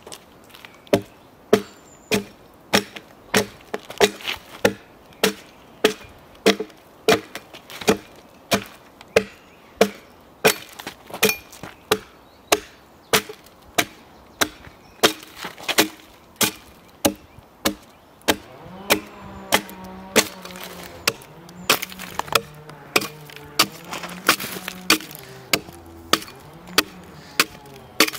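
Mapsyst asymmetrical hewing broad axe chopping along the side of a log, a steady run of sharp strikes about one and a half a second, biting into the wood and splitting off chips.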